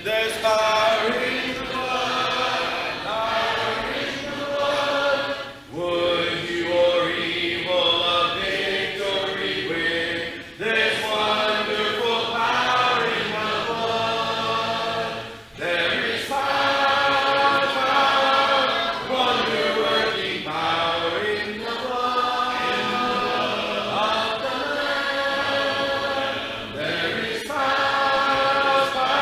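Congregation singing a hymn a cappella, many voices together with no instruments, in phrases broken by brief pauses about six, ten and fifteen seconds in.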